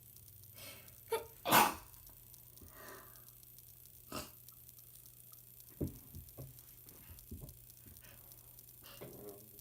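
A person with a cold sneezing: one loud, sudden sneeze about a second and a half in, preceded by a short catch of breath, then quieter breaths.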